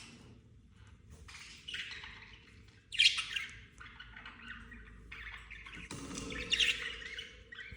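Budgerigars giving harsh, scratchy squawks and chatter in several bursts, with the loudest calls about three seconds in and again a second or so before the end.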